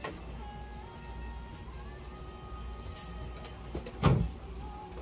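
A small electric motor whines steadily and rises in pitch about two seconds in, with faint runs of high-pitched electronic tones. A single dull thump comes about four seconds in.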